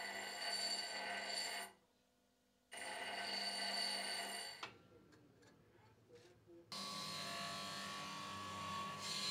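Bench grinder running with a steady whine as a steel meat grinder blade is ground against its abrasive wheel, cutting out abruptly about two seconds in and coming back a second later, then dying away with a few clicks. About seven seconds in, a different steady machine sound with a deeper hum takes over: a large disc grinder grinding a rusty steel part.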